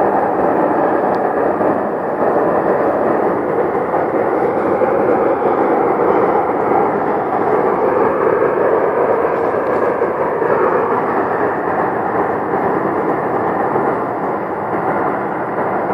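Loud, steady rumbling of unidentified origin, heard coming from the sky. It has no clear rhythm or pitch, only slow small swells in level.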